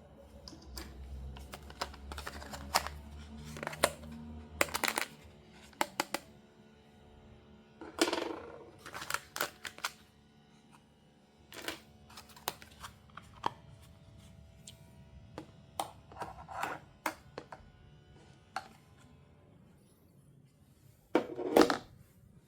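Close-up handling of a doll and its packaging: irregular clicks, taps and short crinkling rustles, with two longer crinkles about eight seconds in and near the end.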